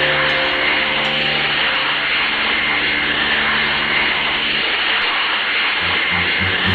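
A steady, loud rushing-noise sound effect, like a blast of energy or wind, over low sustained music tones. The low tones drop out about two-thirds of the way through, and low rhythmic pulses start near the end.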